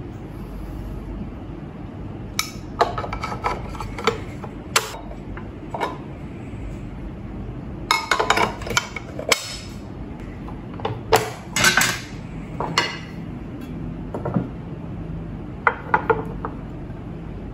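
Removable metal cooking plates and a nonstick pot of a Monda 3-in-1 waffle maker being taken out, set down and clicked into place: irregular clinks, clacks and knocks in several short clusters.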